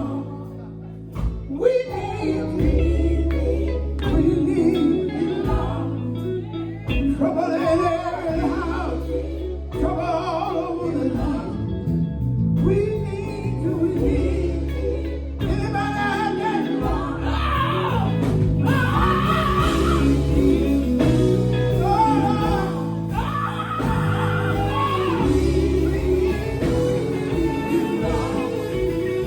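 Gospel quartet singing with a backing band, bass and guitar under the voices; the music grows fuller about halfway through.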